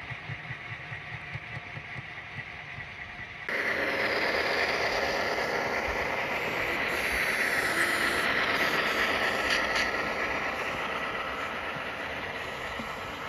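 A train on the rails: a low rumble, then suddenly much louder about three and a half seconds in, with a dense rolling noise and a steady high whine from wheels on rail, easing off toward the end.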